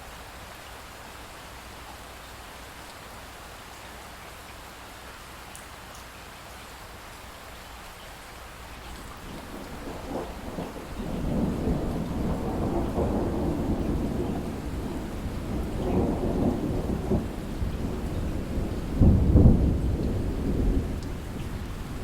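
Light rain falling with drips, then distant thunder: a long rolling rumble that builds from about nine seconds in, swells in waves and peaks near the end before easing off.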